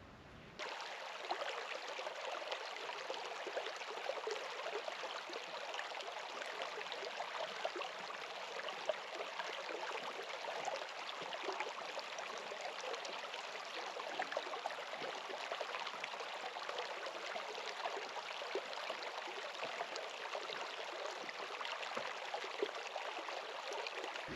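Steady rush of flowing water, like a stream, starting suddenly about half a second in.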